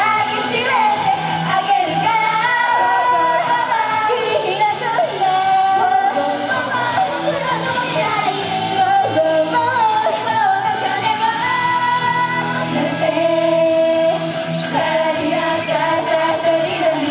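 Female idol group singing an upbeat J-pop song live over pop backing music, with long held notes toward the end.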